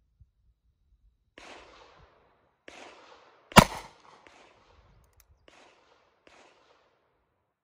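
A single loud shot from a Taurus Raging Hunter .460 S&W Magnum revolver, a little past halfway. Several much fainter shots with a trailing echo come before and after it.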